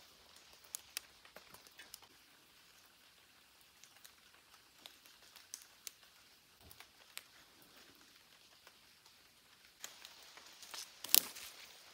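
Scattered light ticks and patter of drips falling on leaves in a wet forest, over a faint hiss. Near the end comes one much louder sharp knock.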